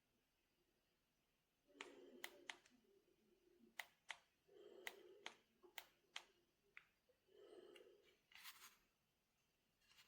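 Faint handling noises: a scatter of sharp clicks with short rustling sounds in between, coming in clusters a few seconds apart.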